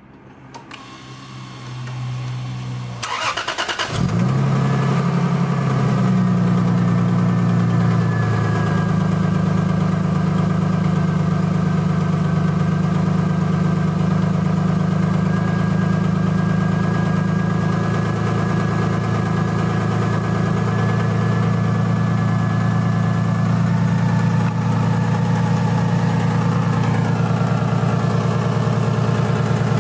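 Lexus GS300's 2JZ inline-six engine starting after an alternator replacement: it catches about three to four seconds in, runs a little faster at first, then settles into a steady idle.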